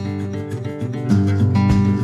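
Background music led by a strummed acoustic guitar, with a deep low beat near the end.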